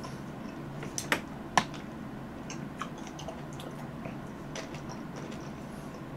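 Mouth sounds of eating fresh cherries: chewing with a few short, sharp clicks of biting into the firm fruit, the loudest about a second in.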